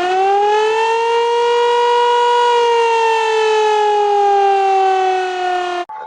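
Loud siren wail of the Greek emergency alarm: it rises in pitch, holds, then slowly falls and cuts off abruptly near the end. A steady beep tone, the Greenland alert, begins at once.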